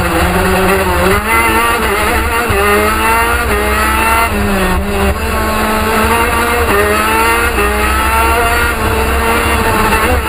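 Intrepid-TM 125cc two-stroke gearbox kart engine at racing speed, its pitch climbing several times and dropping back briefly between climbs as it accelerates and shifts.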